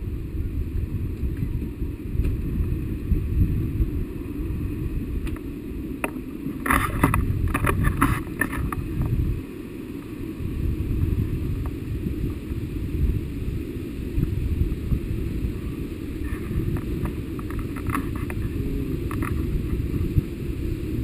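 Wind rushing and buffeting over the microphone of a camera held out in flight under a tandem paraglider: a deep, uneven rumble that swells and eases with the airflow. A few brief clatters come about seven to eight seconds in.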